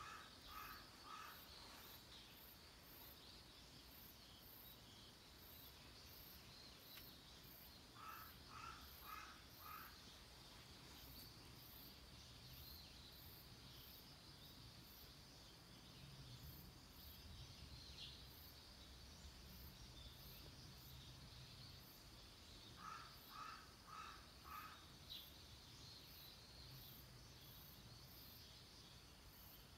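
Faint outdoor ambience: a bird calling twice in short runs of about four evenly spaced calls, over a steady high insect hum.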